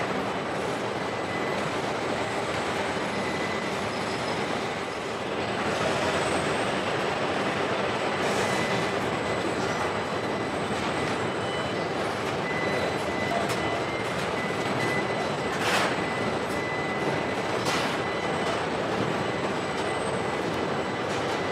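Steady machinery noise from a robotic car-body assembly line, with a faint steady high whine. A few brief sharp sounds stand out in the second half.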